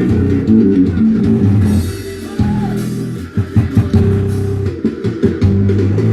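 Music from a phone played loud through a repaired Sony stereo amplifier into large speaker cabinets, with a heavy bass; guitar, bass guitar and drums can be heard. The music eases briefly about two seconds in, then comes back full.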